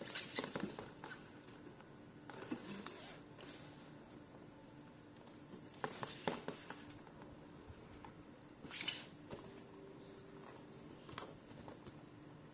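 Quiet handling noises: scattered clicks and knocks, as of a plastic toy being picked up and handled, with a brief rustle about nine seconds in, over a faint steady hum.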